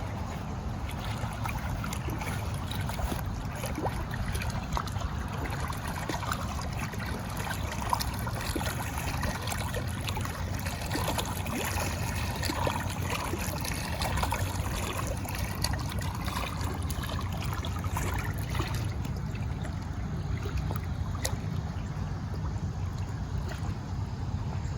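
Water trickling and splashing over a steady low rumble.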